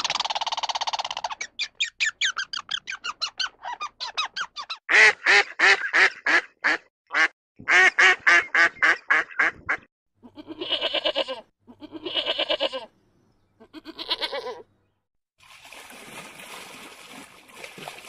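Grey squirrel making rapid chattering calls, in fast runs of pulses, for about the first ten seconds. Then a sheep bleats three times, and a hiss follows near the end.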